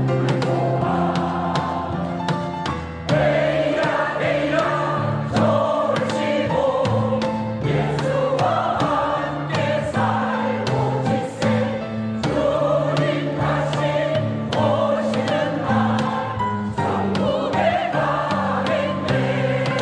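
Church choir singing a hymn with instrumental accompaniment: held chords over a steady bass line.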